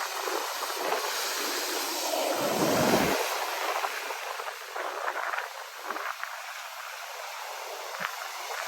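Ocean surf washing in, a steady rushing noise with one louder, deeper surge about two and a half seconds in.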